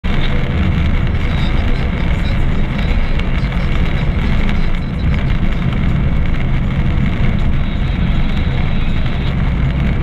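A car driving along a road, heard from inside the cabin: steady engine and tyre rumble.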